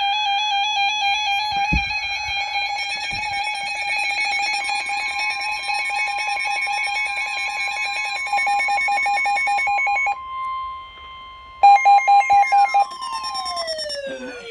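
Electronic emergency alert tones: a warbling, rapidly pulsing tone, joined about four and a half seconds in by a second steady higher tone, breaking off after about ten seconds. Then come several short loud beeps and a tone sliding steadily down in pitch near the end.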